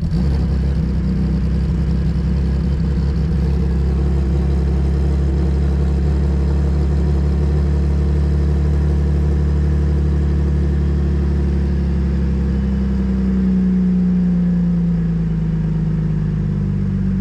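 Car engine running steadily with a loud, deep exhaust drone coming from under the car, from an exhaust pipe that the owner thinks may have a hole in it. The pitch rises slightly about two-thirds of the way through, then settles.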